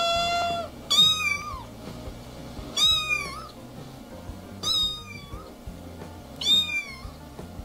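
Orange-and-white domestic cat meowing four times, about every two seconds, each meow short and falling in pitch at its end.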